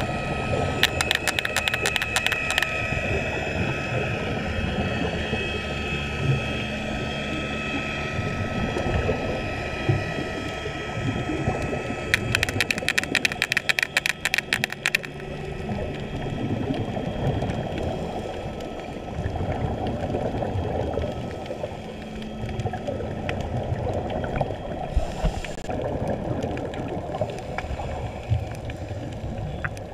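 Underwater sound heard through a GoPro's waterproof housing: a steady muffled drone with a few thin steady tones, broken twice, about a second in and again about twelve seconds in, by a few seconds of rapid crackling clicks.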